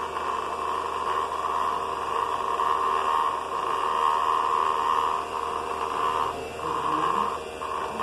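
Small DC motor of a homemade plastic-bottle vacuum cleaner, run from a 5-volt charger, spinning its fan: a steady whirring hiss with a whine in it, dipping briefly twice in the second half as bits of foam are sucked up.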